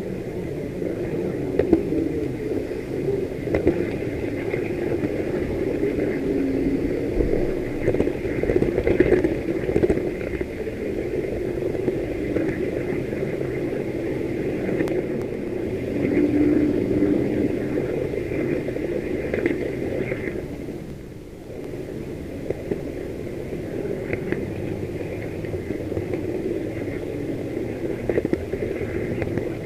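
H0 model train running along the track, heard from on board: a steady rumbling running noise with scattered small clicks. It dips briefly about two-thirds of the way through.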